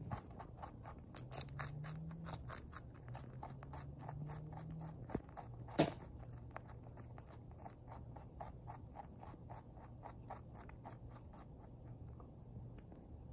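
Pet rabbit chewing lettuce: rapid crisp crunches, several a second, fading near the end, with one sharper click about six seconds in.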